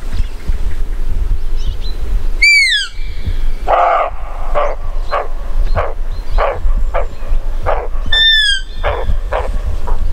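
Roe deer barking in alarm as it flees: a series of short, harsh barks about twice a second. Two high whistled calls fall in pitch, one just before the barking starts and one near its end. Steady wind rumbles on the microphone.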